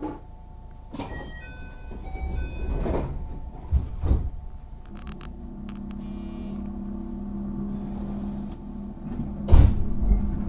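Inside a JR West 221 series electric train standing at a station: a short electronic chime of stepped tones, then two heavy thuds about four seconds in as the sliding doors close. A steady low hum starts a couple of seconds later, and a loud clunk comes near the end.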